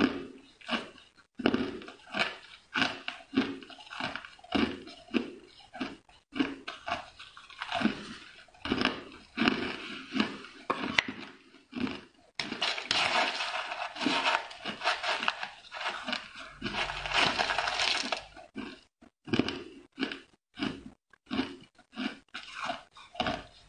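Ice being chewed with close, repeated crunching, about two crunches a second, thickening into a steadier run of crunching through the middle.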